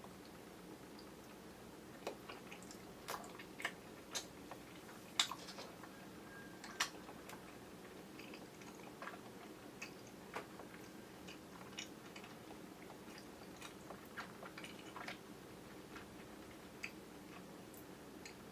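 Chewy kyoho grape jelly being chewed: irregular wet mouth clicks and smacks. Under them is a steady low hum from the camera's built-in microphone.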